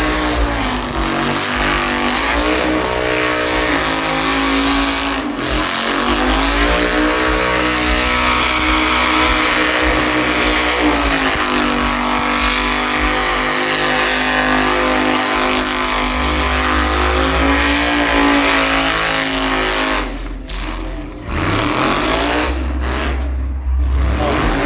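El Chromino, a Chevrolet El Camino, doing a burnout: the engine is held at high revs while the rear tyres spin on the pavement, with a steady hiss over the engine. About twenty seconds in, the revs drop away briefly, then build up again.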